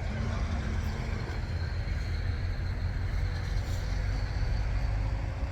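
Steady rumble of highway traffic going by.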